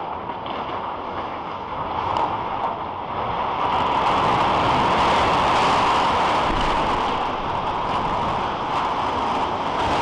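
Collapse of the Arecibo Observatory radio telescope: its support cables snap and the suspended instrument platform crashes down into the dish. It is heard as a loud rushing, rumbling noise that swells from about two seconds in and stays loud.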